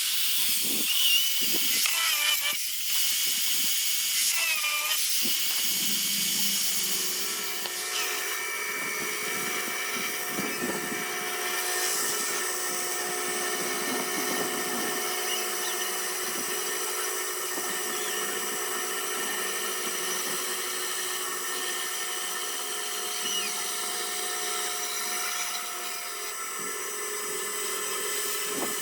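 A small high-speed rotary carving tool running steadily against wood, a whine of several high tones over a hiss, its pitch shifting in the first few seconds before settling.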